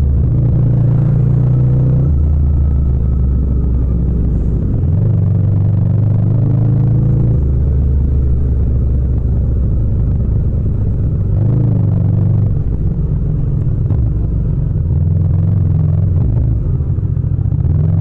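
Yamaha MT-07's parallel-twin engine running at low speed in traffic, its pitch stepping up and down with throttle and gear changes. There is a short rise in revs a little past the middle.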